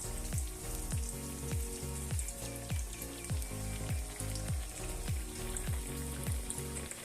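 Pieces of bread frying in a pan of hot oil, a steady sizzle with small crackles. Under it runs background music with a regular bass beat.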